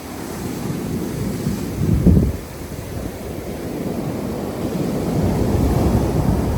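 Sea waves washing onto a beach, with wind buffeting the microphone; a surge about two seconds in.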